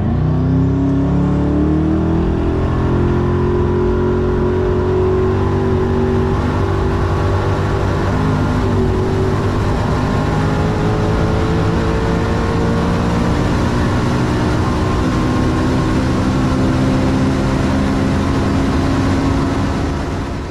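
Koenigsegg Regera's twin-turbocharged 5.0-litre V8, with its electric motors, at full throttle from a standstill, heard on board. The engine note climbs quickly at first and then keeps rising steadily, without gear changes, since the car's direct drive has no conventional gearbox.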